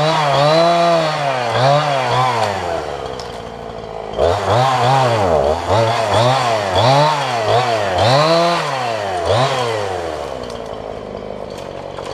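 Chainsaw running, its engine speed rising and falling over and over, roughly once or twice a second, settling to a steadier lower note for a moment about three seconds in and again near the end.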